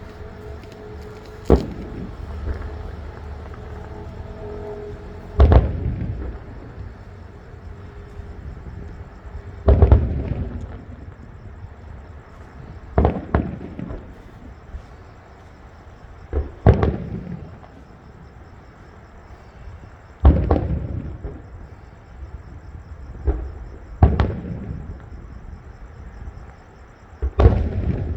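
Fireworks display: aerial shells bursting with loud booms about every three to four seconds, some in close pairs, each trailing off in a rolling echo.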